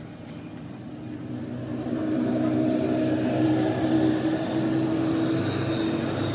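A motor vehicle's engine running as it passes on the road, growing louder for about two seconds and then slowly fading.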